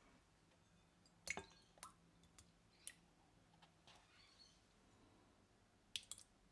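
Quiet kitchen handling: a few separate sharp taps and clicks, then a quick cluster of clinks near the end as a small bowl is tipped against the rim of a glass mixing bowl.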